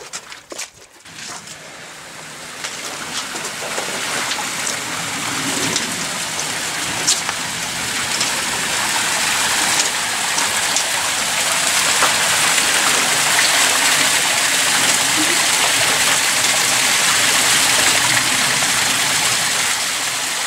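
Hot spring stream water rushing and splashing, a steady hiss that grows louder over the first several seconds and then holds.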